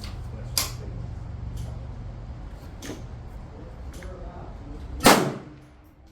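A single rifle shot from a 450 Bushmaster AR-style rifle about five seconds in, after a few light clicks.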